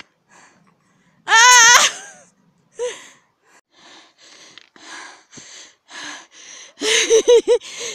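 A woman gives a loud, high-pitched squeal about a second in. Then come soft, evenly spaced scrunches of snow as gloved hands scoop it from a snowbank, and a burst of laughter near the end.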